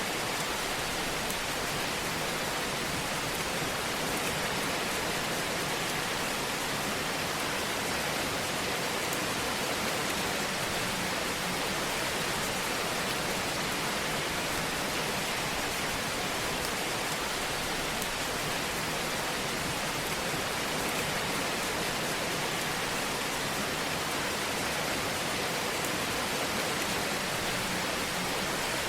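Steady hiss of a fireplace fire, with a few faint crackles.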